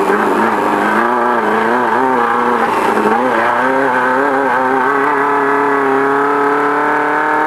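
Engine of a VW Beetle-based off-road race car under way. Its pitch wavers up and down for the first few seconds, then climbs slowly and steadily as the car accelerates.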